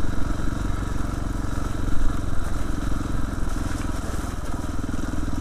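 KTM 690 R's single-cylinder four-stroke engine running steadily as the bike is ridden along a muddy track, with a brief louder moment about two seconds in.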